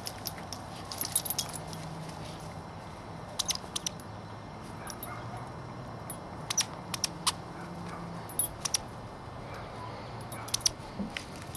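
Metal tags on a dog's collar jingling in short clusters as the dog runs about and carries a toy, with a faint low steady hum underneath.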